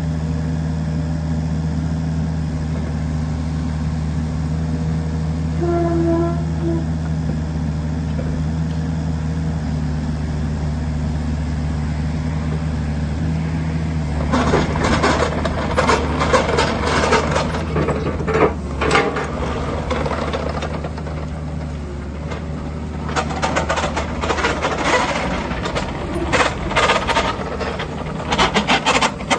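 Kubota KX71-3 mini excavator's diesel engine running steadily as the boom and bucket are worked. From about halfway, a loud, irregular clattering and rattling comes and goes, most likely the rubber tracks and undercarriage moving over gritty wet concrete.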